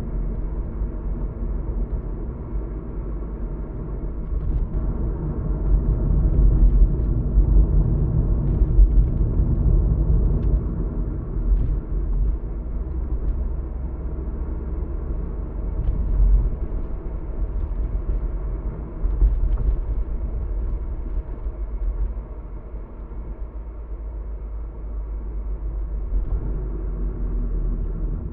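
Road and engine noise heard from inside a moving car's cabin: a steady low rumble that swells for several seconds a few seconds in and eases again later.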